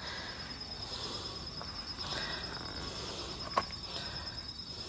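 An insect trilling steadily at a high pitch in a fast, even pulse, with a single sharp click about three and a half seconds in.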